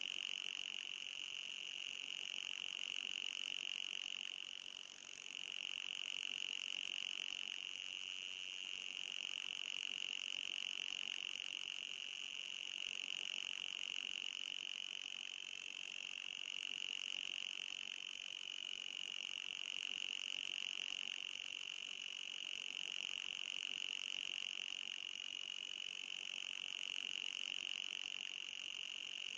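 An anti-fly repellent sound: a steady, high-pitched whine that wavers slightly in pitch and dips briefly about five seconds in.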